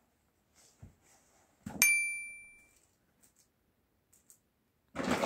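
A hard object knocked once, a sharp clink about two seconds in with a high ringing tone that fades within a second. A brief noisy rustle near the end.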